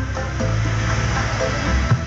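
Arranger-keyboard music played live on a phone keyboard app and heard through a small Bluetooth speaker set: held bass notes under chords, with a drum hit at the start and another near the end.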